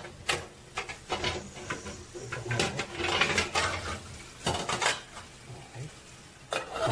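Aluminium cooking pot and its metal lid being handled on a gas stove: a string of short metal clinks and knocks, with a longer scraping stretch around the middle.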